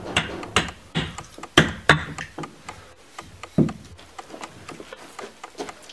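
Small hatchet chopping a wooden spoon blank held on a wooden chopping block: a run of sharp, irregular wooden knocks, several quick ones in the first two seconds, then sparser, with one heavy knock about three and a half seconds in.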